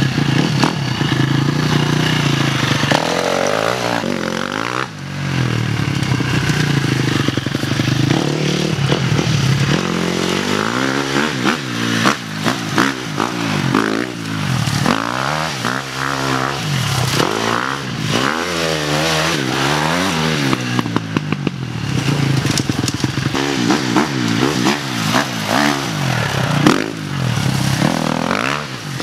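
Dirt bike engine revving hard as it is ridden, its pitch rising and falling over and over with the throttle and gear changes.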